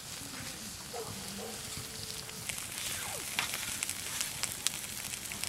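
Scallops in their shells sizzling on a wire grill grate over an open wood fire, with the fire crackling and popping now and then.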